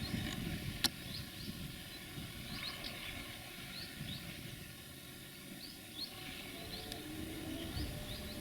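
Small birds chirping, many short high calls scattered throughout, over a low background rumble, with one sharp click about a second in.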